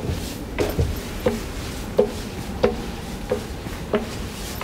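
Footsteps going up metal escalator steps, a sharp click about one and a half times a second in a steady walking rhythm.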